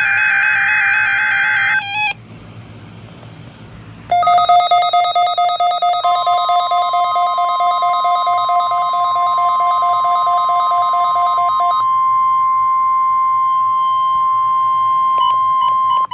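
NOAA Weather Radio alert signals. The tail of a SAME digital header burst, a warbling two-tone data screech, cuts off about two seconds in. After a short pause, a pulsing electronic alarm beep starts at about four seconds. About six seconds in, the steady 1050 Hz weather-radio warning tone joins it; the tone holds to the end, while the pulsing beep stops near twelve seconds.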